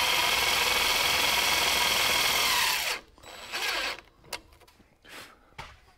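Cordless drill running against the sheet-metal elbow of a garage heater's exhaust vent: a steady whir that winds down in pitch and stops about three seconds in. A brief quieter run and a couple of light clicks follow.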